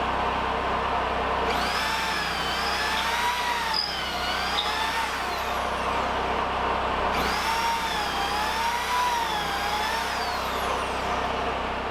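A power tool runs steadily with a constant hum. Twice a whine wavers slowly up and down in pitch over it, each time for a few seconds.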